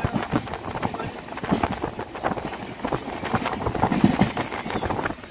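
Passenger express train running along the line, heard from aboard: wheels clattering over the rails amid steady running noise, with irregular knocks.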